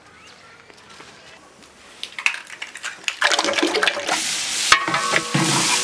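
Beaten eggs poured in a thick stream into a large metal pot: a loud liquid gush that starts about three seconds in and stops abruptly near the end, with a few clicks just before it.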